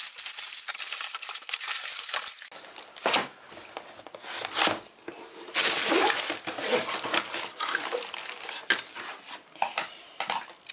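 Hands handling airsoft pistols and their packaging: rustling and crinkling, then scattered sharp metallic clicks and clinks as the metal pistols and parts are picked up and set down.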